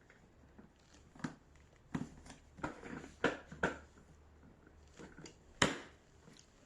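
A series of sharp knocks and clicks, the loudest near the end, from vacuum cleaner parts being handled, over a faint low hum. The vacuum motor is not running.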